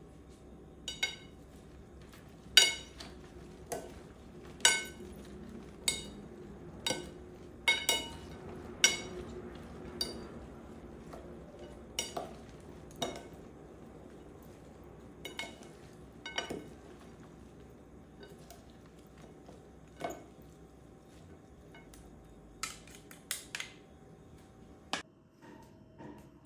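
Serving spoons knocking against a ceramic bowl as a salad is tossed: well over a dozen sharp, irregularly spaced clinks, each with a brief ring, over a soft sound of the food being stirred.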